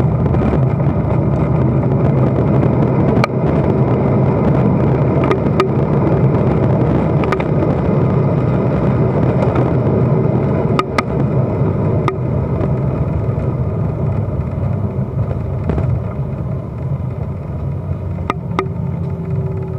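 Steady, loud vehicle rumble, strongest in the low range, with a few faint sharp clicks scattered through it; it eases slightly about halfway through.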